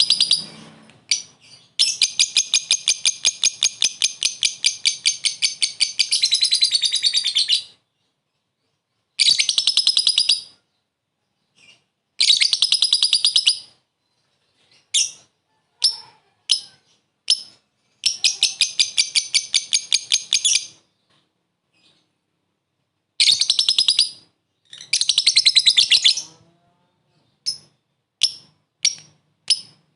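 Lovebird chattering: the long, rapid trills of high, shrill notes that bird-keepers call ngekek. The longest trill runs about six seconds, followed by shorter trills of one to three seconds and a few single sharp chirps.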